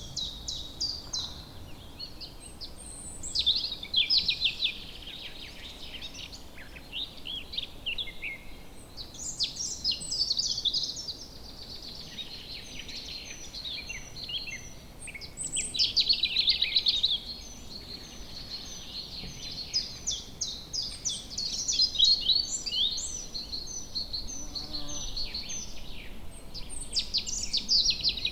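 Several songbirds singing at once in woodland: overlapping trills and chirps, joined in the second half by a steady series of short high notes.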